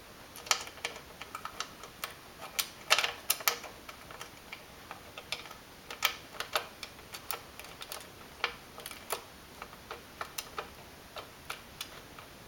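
Irregular small clicks and taps of a small screw and screwdriver being worked into the mitre saw's spring-loaded blade guard, with the odd louder knock.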